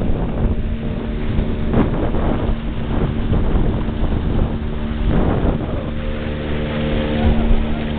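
Motorboat engine running steadily under way, with wind buffeting the microphone in gusts.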